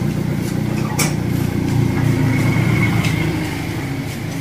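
A cargo vehicle's engine running steadily at low revs, with a sharp click about a second in.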